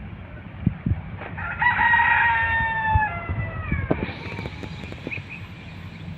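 A rooster crowing once: one long call of about two and a half seconds that drops in pitch at the end. A few faint knocks are heard under it.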